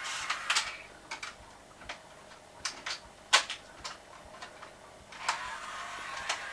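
A series of sharp, irregularly spaced clicks and light knocks, about a dozen, with the loudest a little over three seconds in.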